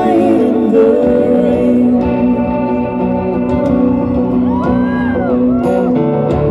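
Live pop band music: the duet's vocal line trails off in the first moments, then an instrumental passage of sustained keyboard chords with guitar.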